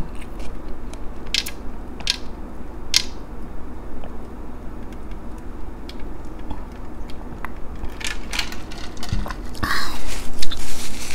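A person drinking water from a large glass mug: quiet swallowing with a few sharp mouth clicks, then louder knocks and noise near the end as the mug is set back down on the table.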